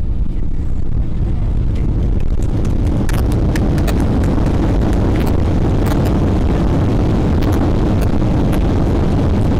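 Inside an airliner cabin beside the wing, the jet engine runs steadily while the landing gear rumbles on the runway. From about three seconds in come irregular knocks, as the wheels cross bumps and joints in the pavement.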